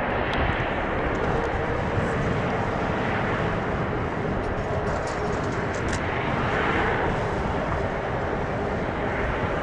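Boeing 787-9 airliner's jet engines running steadily as the aircraft taxis on the runway.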